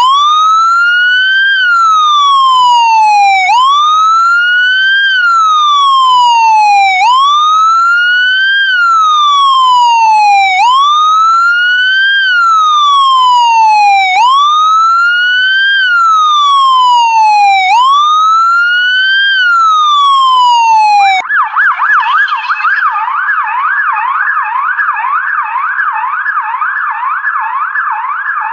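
Police siren sounding loudly in a slow wail: each cycle climbs quickly and then sinks away, about every three and a half seconds. About 21 seconds in it switches abruptly to a fast yelp, sweeping up and down about three times a second.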